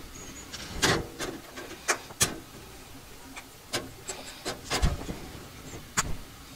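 Screw removal from a 3D printer's sheet-metal bottom panel: sharp clicks and taps of small screws and a hand tool being set down on a wooden workbench, with light rubbing and handling in between. The clicks come singly, about once a second, the loudest about one and two seconds in.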